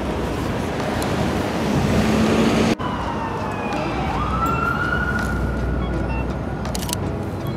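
City street traffic, then, after a cut, an emergency-vehicle siren wailing: its pitch sinks, sweeps sharply up and then holds high, easing down slowly, over the traffic noise.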